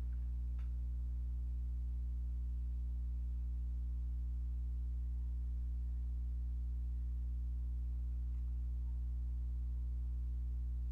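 Steady low electrical hum with a stack of overtones, unchanging throughout, typical of mains hum picked up by the recording. A faint single click about half a second in.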